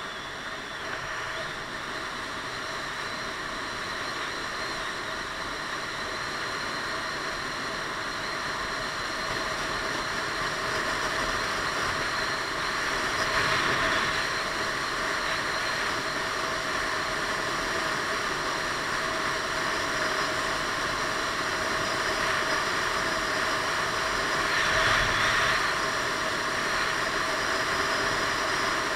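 Piaggio Beverly 500 scooter running at road speed: a steady engine and drive drone mixed with wind rush over the onboard camera. It grows gradually louder, with brief swells about halfway through and near the end.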